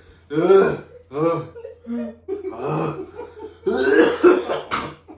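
A man coughing and gagging in several loud outbursts, retching at the stench of fermented fish, with laughter mixed in. The loudest outburst comes about four seconds in.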